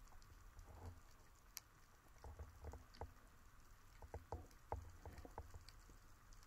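Faint underwater ambience: scattered sharp clicks and a few soft low thumps, the clicks clustering about four to five seconds in.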